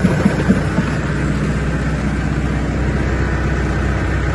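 RCF350C water well drilling rig's engine running steadily with a low drone, with a few short knocks in the first second.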